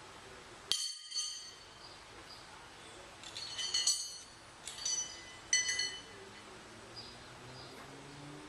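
Several bright, ringing clinks, each sounding a few high tones that fade over a fraction of a second: two close together about a second in, then a cluster in the middle and two more a little later.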